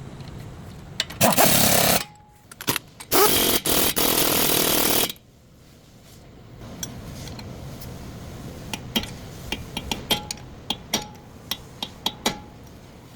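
A power tool run in two bursts, the first about a second long and the second about two seconds, followed by scattered light clicks and clanks of tools handled on metal.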